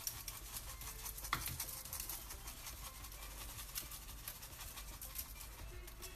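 Thyme being sprinkled by hand over raw chicken pieces. It makes a faint, continuous patter of many small ticks.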